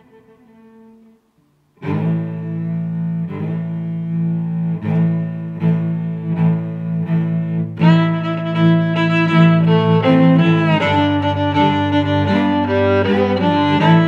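Background music, a pirate-style piece led by low bowed strings. It fades out, falls silent for a moment, then starts again just under two seconds in with a pulsing beat and grows fuller about eight seconds in.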